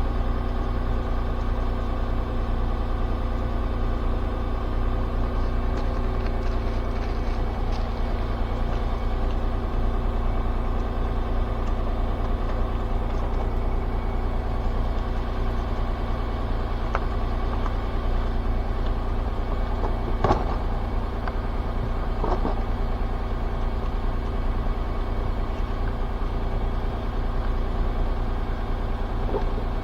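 Car engine running steadily with a low hum, and a couple of short knocks about twenty seconds in.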